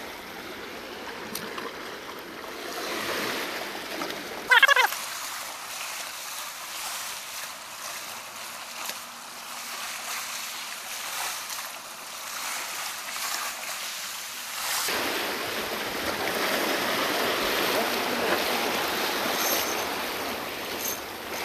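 Small ocean swells washing and breaking against a rock ledge, a steady surging wash of water. A brief high squeak comes about four and a half seconds in. The wash grows louder and fuller from about fifteen seconds in.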